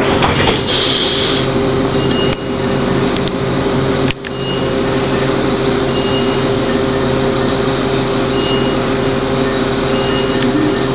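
Steady hum and drone of a New Flyer E40LFR electric trolleybus heard from inside while it stands still, with a steady mid-pitched tone running through it. A short hiss comes about a second in, and the drone briefly drops twice in the first few seconds.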